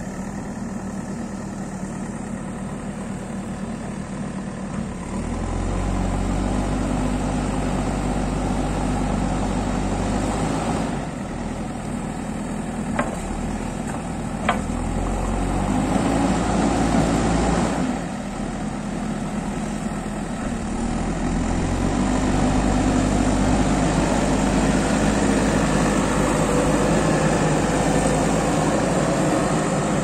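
JCB backhoe loader's diesel engine running and revving up and down as the front bucket pushes and levels soil. It works harder and louder for stretches, easing back in between, with two sharp knocks about halfway through.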